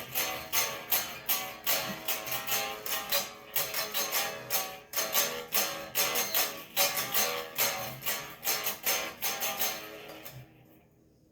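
Guitar strummed in a steady rhythm, an instrumental passage between sung lines; the playing thins out and fades away about ten seconds in.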